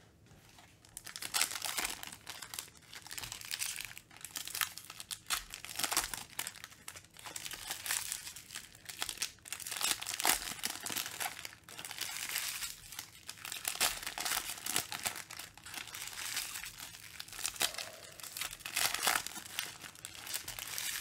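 Foil trading-card pack wrappers being torn open and crumpled by hand: a continuous, irregular crinkling and crackling that starts about a second in.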